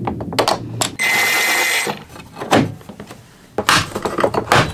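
Plastic interior trim around a Hyundai Starex sliding-door handle being pried and pulled loose: a run of clicks and knocks, a steady scrape of about a second, then more knocks and handling noise near the end.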